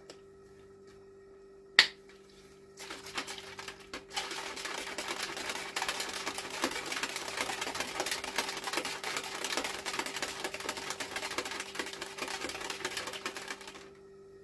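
A sharp click about two seconds in, then a plastic shaker bottle shaken hard for about eleven seconds: fast, dense rattling and sloshing that stops abruptly near the end, as pre-workout powder is mixed into water.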